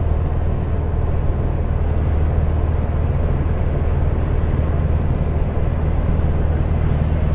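Small aircraft in flight, heard from inside the cabin: a steady, loud engine drone with a low hum under a rush of wind noise.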